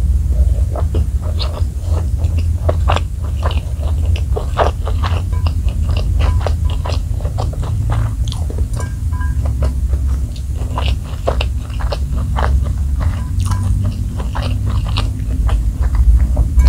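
Close-miked chewing of crispy fried chicken and fried rice, with many short, crisp crunches, over a steady low rumble.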